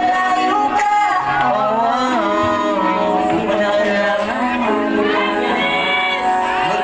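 Singing into microphones, amplified through a PA loudspeaker over a pop-style backing track, with held and gliding sung notes.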